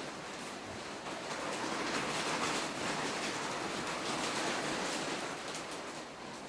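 Rustling and sliding of packaging as a phone box is handled and opened: a steady noise that swells in the middle and eases near the end, with a few faint clicks.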